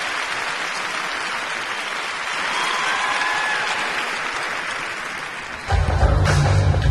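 Arena crowd applauding steadily, with a brief high whistle about three seconds in. Near the end, the skating program's music comes in suddenly with a heavy low bass.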